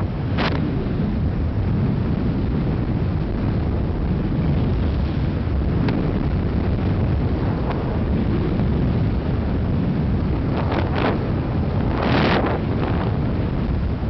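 Wind buffeting the microphone at high skiing speed, a steady low rumble, with short hissing scrapes of ski edges on groomed corduroy snow, the loudest about twelve seconds in.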